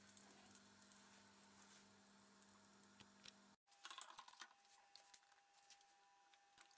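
Faint, quiet kitchen clicks and taps. First a spatula works a pancake in a nonstick pan over a faint steady hum. Then, after a brief drop-out about three and a half seconds in, a balloon whisk clicks as it is fitted to a stand mixer.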